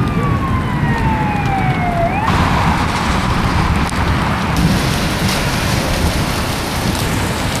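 An outdoor tornado warning siren winds down in one slow falling tone over the first two seconds, over heavy rushing wind and rain noise. The siren then cuts off abruptly, and steady wind and rain noise carries on alone.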